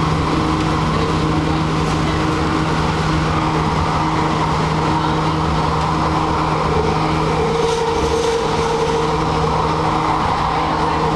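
Vancouver SkyTrain car running along the guideway, heard from inside: a steady hum from its linear induction motors and wheels on the rails, with several steady tones. About seven seconds in the sound changes as a train on the other track comes alongside.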